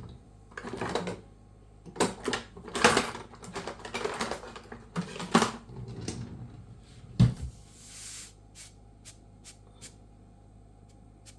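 Kitchen clatter of utensils and containers being handled: an irregular run of clicks and knocks, with one sharp, heavy knock about seven seconds in, then a few light ticks.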